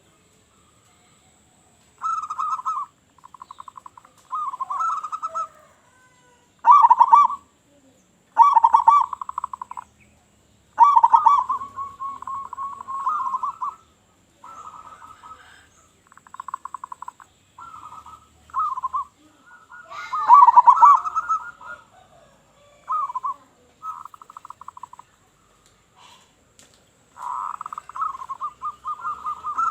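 Zebra dove (perkutut) cooing: a run of short phrases of rapid trilled coos, all at about the same pitch, separated by gaps of about a second, some phrases louder than others.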